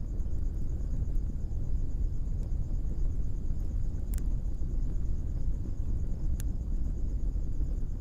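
Blacksmith's coal forge fire giving a steady low rumble, with two sharp pops about four and six and a half seconds in.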